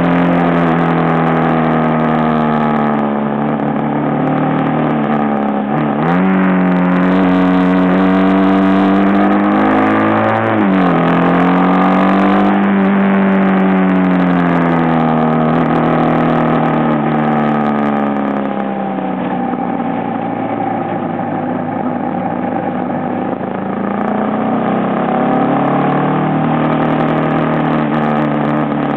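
Aprilia Pegaso motorcycle engine under way, its revs rising and falling through the bends. The pitch dips sharply and recovers twice in the first half, sinks slowly through the middle, then climbs again near the end.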